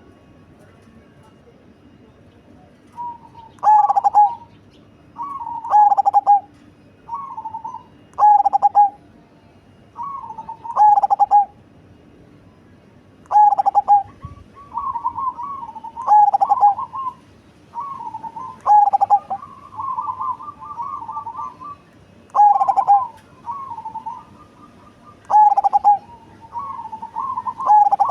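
Zebra dove (perkutut, black cemani type) cooing: a loud short coo phrase repeats about every two to three seconds, with softer quick rippling coos in between.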